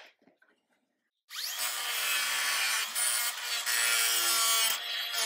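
Angle grinder starting up about a second in and grinding down an old weld on the steel body of a 1968 VW Beetle, clearancing it for a new floor pan: a steady whine over a rough grinding hiss.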